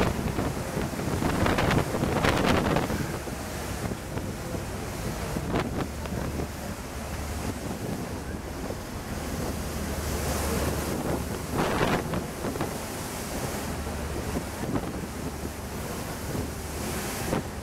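Wind buffeting the microphone on a ferry's open deck, over the rush of choppy sea, with a steady low hum from the ship underneath. The gusts are heaviest in the first few seconds, with lighter ones later.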